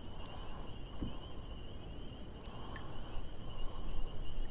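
Wind rumbling on the microphone, with a steady high-pitched trilling chorus of animal calls running underneath.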